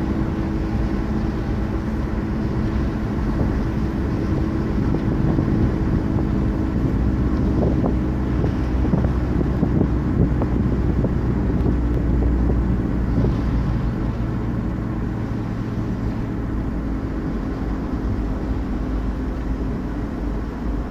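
Car engine running and tyre noise heard from inside the cabin while driving: a steady low hum with a drone of road noise.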